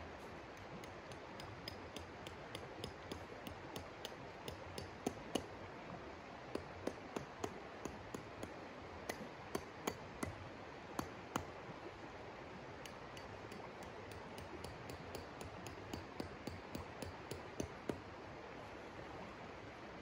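Steady rush of a shallow river, with a string of sharp, light clicks and clinks close by, loudest and most frequent from about five to eleven seconds in.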